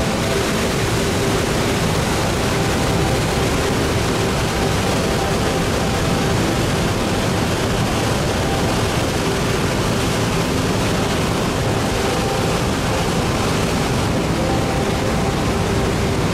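Steady rush of water pouring through a canyon waterfall, a constant wide hiss and roar with no breaks.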